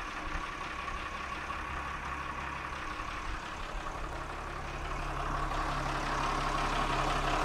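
A boat's inboard engine running in forward gear, turning the propeller shaft, heard close up in the engine compartment. It is a steady drone that grows somewhat louder from about five seconds in.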